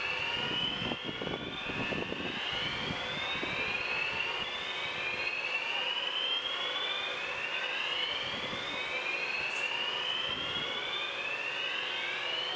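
Building fire alarm sounding a repeated rising whoop tone, one upward sweep about every second and a quarter, with a low rumble under it in the first few seconds.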